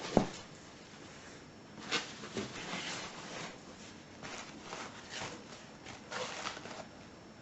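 A heavy thump just after the start, then several short bursts of rustling and clattering as a box of heavy vintage padlocks and their packing is handled and dug through.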